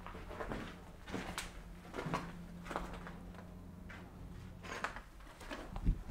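Footsteps walking indoors: about ten uneven steps with a short pause midway.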